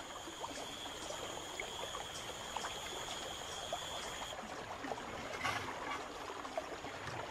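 Swollen, flood-high river flowing past, a steady wash of running water. A thin, steady high-pitched tone runs over it and stops about four seconds in.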